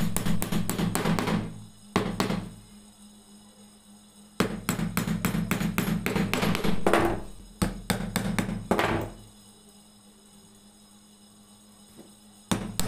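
Small hammer tapping nails into a small pine box, in quick runs of light taps with a few harder blows, broken by two pauses of a few seconds. Music plays along with the tapping.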